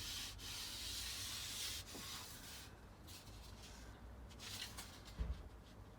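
Faint rubbing and handling noises, with a short low thump about five seconds in.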